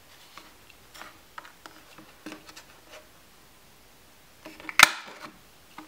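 Small handheld paper punch (Itty Bitty heart punch) punching hearts out of white cardstock: soft paper rustling and small clicks, then one loud sharp snap near the end as the punch cuts through.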